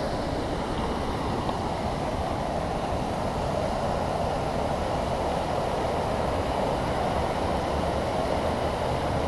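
Steady rush of a mountain creek's flowing water, an even unbroken noise.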